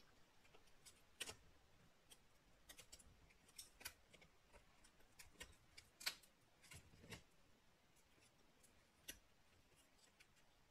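Faint, scattered light clicks and taps from laptop keyboard parts being handled, about a dozen at irregular intervals with quiet gaps between them.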